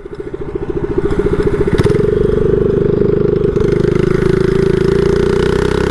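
Mini bike's small single-cylinder engine picking up revs over the first couple of seconds, then running steadily at speed with a fast, even exhaust beat.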